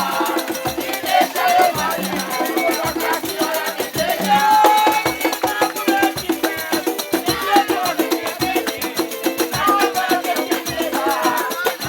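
Upbeat Brazilian-style music with shaker and hand percussion over a steady, repeating bass beat, with a melody line on top.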